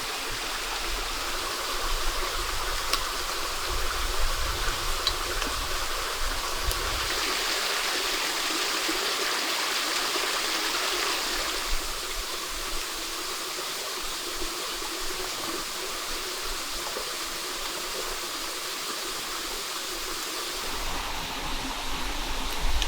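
Steady rushing of a stream or small waterfall, with a few faint clicks over it.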